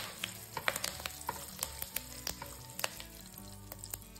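Mustard seeds, fenugreek seeds, dried red chillies and curry leaves sizzling in hot oil as a tadka (tempering). Frequent sharp, irregular pops and crackles come from the spluttering seeds.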